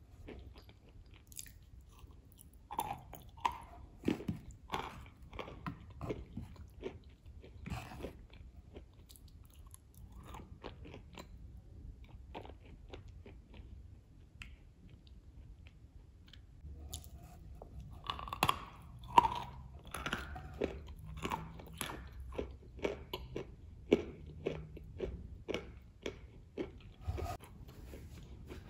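Close-miked eating of a Matryoshka cookie with whipped cream: crisp crunching and chewing, made of many quick crackles. It is busy at first, quieter in the middle, then dense again in the second half, where the loudest bites come.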